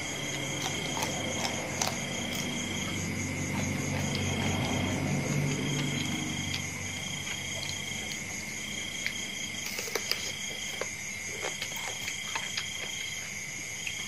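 A steady chorus of trilling insects: one continuous high trill, and a second, higher trill that switches on and off in spells of about a second. A few small clicks and smacks of eating come about ten to twelve seconds in.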